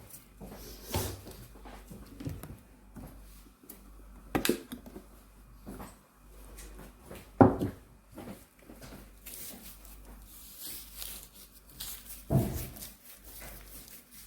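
Scattered kitchen handling noises as kimbap is assembled: a few separate knocks and rustles, the loudest about seven seconds in.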